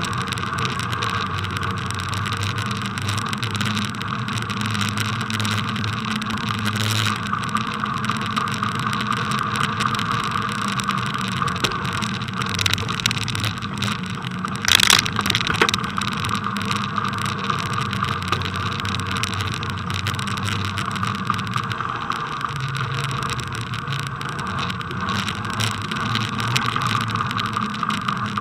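Steady rolling and rattling noise of a bicycle riding over packed snow, picked up by a camera mounted on the bike, with a few sharp knocks, the loudest about halfway through.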